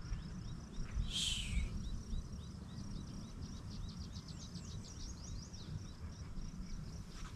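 Wind rumbling on the microphone, with a steady pulsing insect trill and birds chirping; the chirps come as short downward notes that crowd into a quick run in the middle. A brief rasping sound about a second in.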